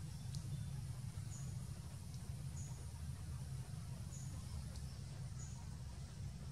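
Forest ambience: a steady low rumble with a faint, short high-pitched chirp repeating about every second and a half, four times, from a small animal calling in the trees.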